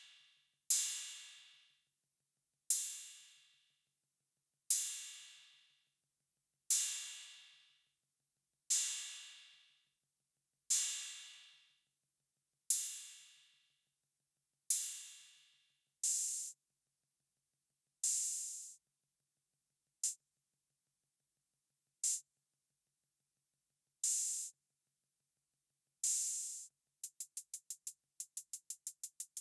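Yocto TR-808 clone drum machine playing single metallic cymbal hits, one every two seconds, their ringing decay growing shorter until the hits are only brief clicks, then longer again. Near the end it switches to a fast run of short hi-hat ticks, about five a second.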